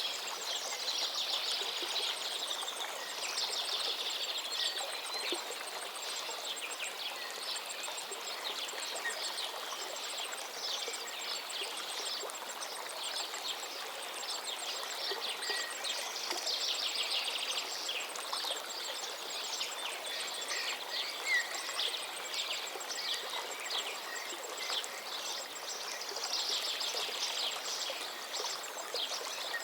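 River water running steadily, with many birds singing and calling over it in short trills and chirps throughout.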